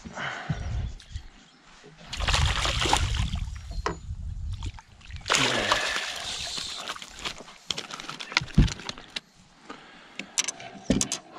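A hooked flathead thrashing at the surface as it is scooped into a landing net: two loud bursts of splashing water. After them come a few sharp knocks as the net is brought aboard onto the deck.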